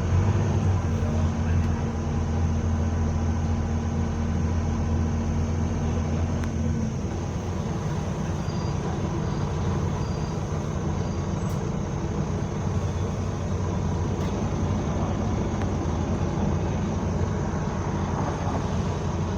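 Bus engine running steadily, heard from aboard the bus: a continuous low hum whose strongest tones drop away about seven seconds in.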